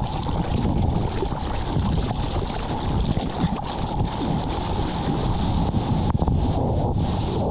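Wind buffeting and sea water rushing over a surfer's point-of-view camera out in the surf: a steady, dense low rumble with a hiss of spray above it.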